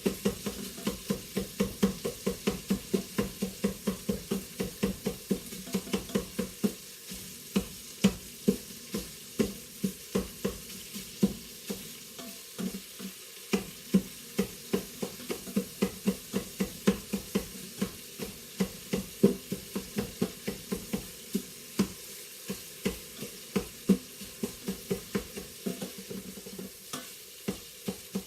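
Chicken pieces sizzling as they brown in oil in a pressure cooker pot, while a hand meat chopper strikes down through them against the pot bottom about three times a second, breaking the chicken into smaller pieces.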